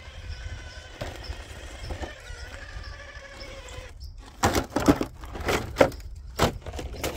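Electric motor and drivetrain of a 1/10-scale RC rock crawler whining steadily as it climbs, cutting out about four seconds in as the truck tips over on the rocks. A series of loud scuffs and thumps follows.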